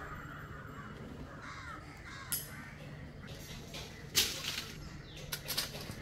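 Birds calling: several short harsh calls, the loudest about four seconds in, over a steady low hum.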